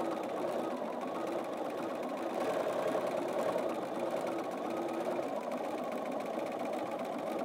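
Bernina 550 sewing machine with the Bernina Stitch Regulator running steadily while free-motion quilting. The needle speed follows how fast the quilt is moved under the foot.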